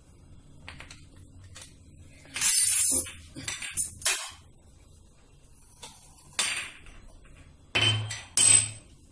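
Kitchen utensils clinking and knocking: a scraping rattle about two and a half seconds in, a few short clinks, then two sharp knocks near the end.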